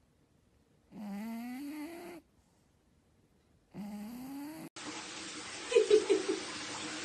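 A sleeping cat snoring, two long breaths each with a whistling tone that rises in pitch, with near silence between. Then a steady hiss of running water, broken just before the end by a short cluster of loud quick pulses.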